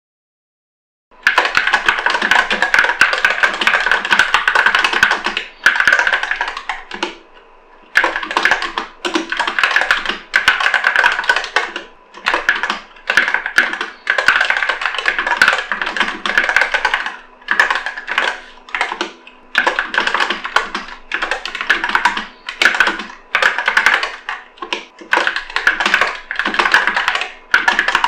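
Fast typing on an Epomaker SK64 mechanical keyboard with Gateron Optical Black linear switches: quick runs of key presses with short pauses between them. It starts about a second in.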